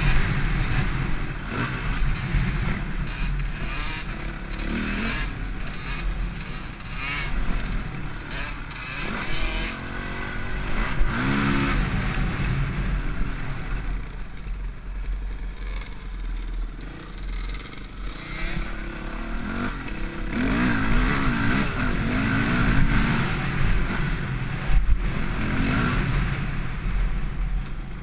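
Dirt bike engine up close, being ridden along a dirt trail, its revs rising and falling repeatedly as the rider works the throttle.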